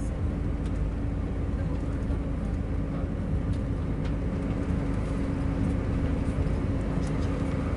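Steady engine and road noise inside a moving bus, a low rumble with a constant hum.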